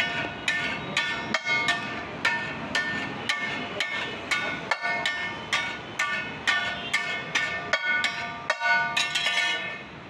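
Metal spatula striking and scraping a large flat steel tawa griddle while working pav bhaji masala, a rhythmic metallic clanging with ringing tones. It goes at about two to three strikes a second and stops just before the end.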